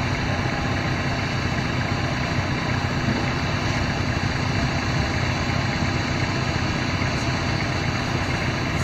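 A small motorboat's outboard engine running steadily under way across open water.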